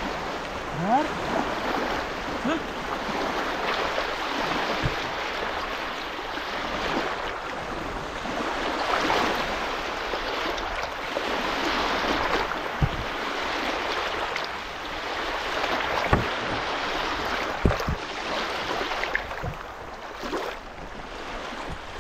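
Water lapping and splashing at a reservoir shore: a steady rushing noise that swells and fades, with a few sharp knocks.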